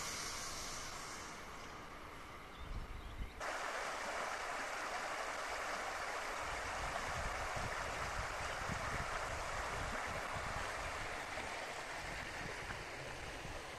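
A passing train fades away over the first three seconds. Then shallow river water rushes steadily over riffles, with some wind buffeting the microphone.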